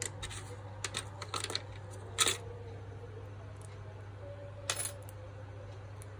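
Small metallic clicks and taps of a smartphone SIM card tray handled in the fingers as a SIM card is worked in it. The loudest click comes about two seconds in and another near five seconds, over a steady low hum.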